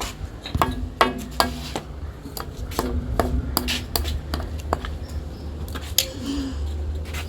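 Irregular sharp knocks and metal clinks of screws and hand tools being handled during carpentry, about a dozen in several seconds, some ringing briefly.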